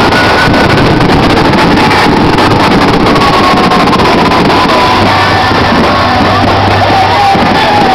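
Loud, distorted music with long held vocal notes, over a dense noisy background, typical of a display soundtrack played through loudspeakers and recorded close to its limit.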